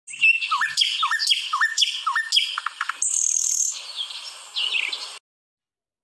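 Common nightingale singing a varied phrase: a run of repeated rising whistles, then rapid high notes and a trill, cutting off abruptly about five seconds in.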